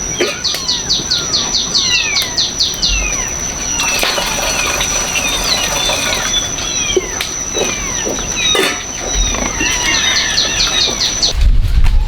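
Birds calling: quick runs of short falling chirps and slower whistles that slide downward, over a steady high-pitched tone. Near the end it all cuts off abruptly and a low rumble takes over.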